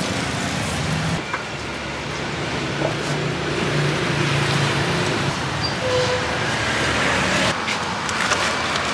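Steady street traffic noise, with the low drone of a nearby engine running for several seconds in the middle.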